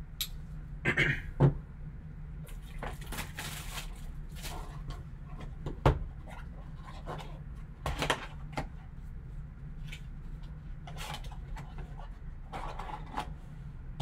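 A sealed trading-card box being opened and its contents handled: cardboard and plastic rustling, with a few sharp clicks and taps, the loudest about six seconds in.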